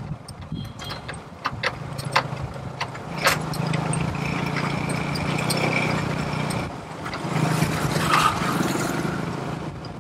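A motor vehicle's engine running steadily, with scattered clicks and rattles.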